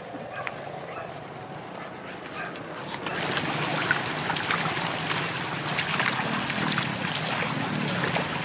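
People and dogs wading through a shallow river: water splashing and sloshing with many irregular footfall splashes. It starts about three seconds in, after a quieter stretch of open-air background.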